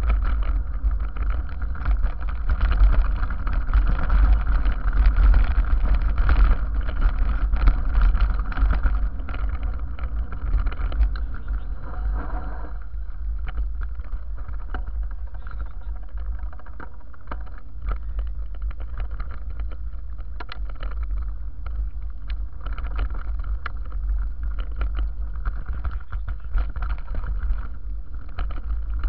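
Mountain bike riding down a gravel dirt track, heard from a camera mounted on the rider or bike: wind rumble on the microphone, tyres crunching over loose stones and the bike and mount rattling with many small knocks. It is louder for about the first twelve seconds, then settles lower.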